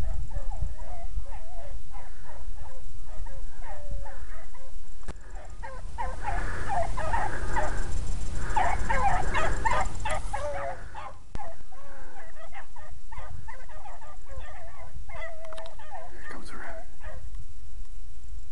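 A pack of hounds baying and yelping on a rabbit's scent trail, many short overlapping cries, with wind rumbling on the microphone and a louder gust in the middle.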